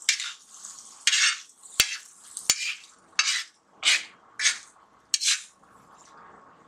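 A metal spoon scraping and stirring thick poppy-seed and onion masala on an iron tawa, in about seven quick strokes. Two sharp metal clinks come about two seconds in, and the stirring stops about a second before the end.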